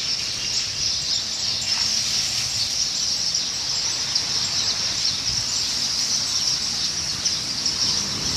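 Dense, steady chorus of high-pitched chirping from wild birds, with no pause.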